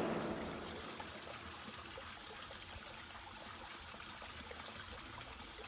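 Faint, steady rush of running water, like a stream.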